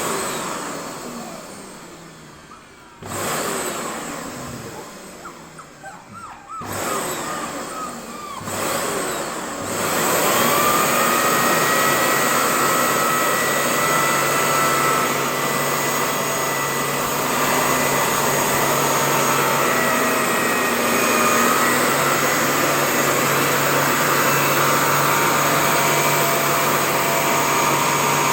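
Vacuum cleaner switched on and off several times in quick bursts, its motor winding down with a falling pitch after each. From about ten seconds in it runs steadily.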